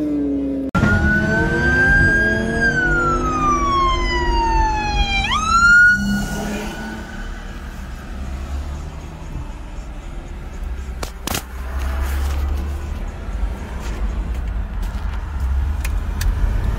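An engine's pitch falling as it winds down, then after a cut a police siren: one long wail sliding down, a quick sweep back up about five seconds in, then fading. Low engine and road drone inside a car's cabin follows, with a sharp click about eleven seconds in.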